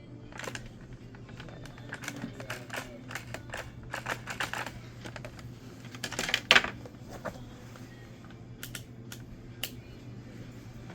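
Irregular light clicks and clacks of small hard parts being handled, with a louder clatter about six seconds in, over a steady low hum.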